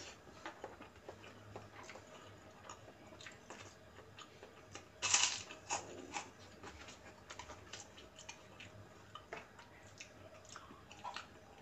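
Close-up eating sounds: chewing fried noodles and biting into a crisp rice cracker (kerupuk), with small clicks of a metal spoon against a plastic bowl. The loudest moment is a sharp crunch about five seconds in.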